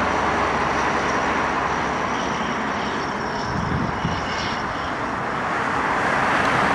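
Jet airliner's engines: a steady rush with a faint high whine, easing a little in the middle and building again near the end.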